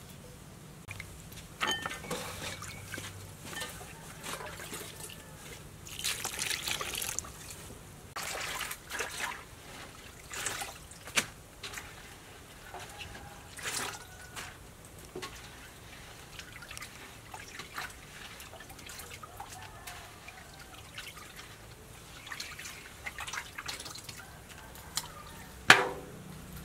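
Hands working food in a metal basin of water: irregular splashing, trickling and dripping as it is handled and squeezed out. Near the end a single sharp metallic clank, the loudest sound, as the metal basin is knocked against the table.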